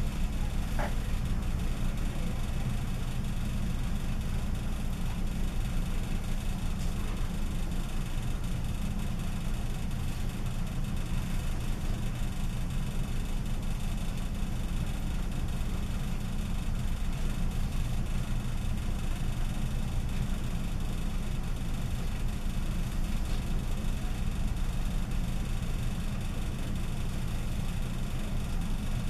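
A steady low hum or rumble, like machinery or ventilation running, holding even throughout, with a faint click about a second in.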